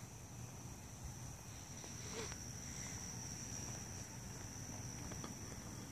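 Night insects trilling steadily at one high pitch, over a faint low hum, with a faint click about two seconds in.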